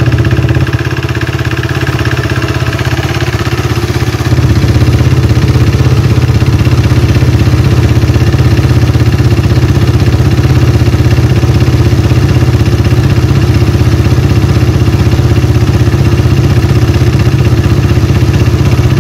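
KTM RC390's single-cylinder engine running steadily just after start-up, a little louder from about four seconds in. The freshly reassembled engine is pushing oil through a newly fitted external filter line.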